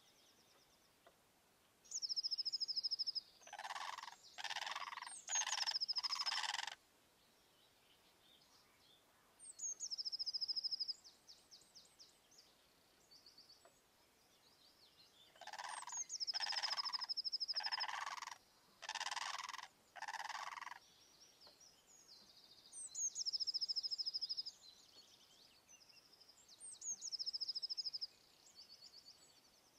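Bird calls. A lower call is repeated several times in a row in two runs, and a small bird's high phrase, a quick falling note and then a short trill, comes back about every four to six seconds.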